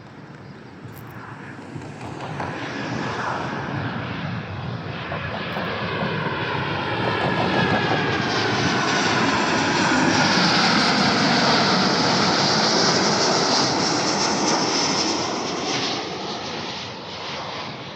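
Jet airliner passing close by. Its engine noise swells over several seconds, is loudest past the midpoint, then fades near the end, the engine whine shifting in pitch as it goes by.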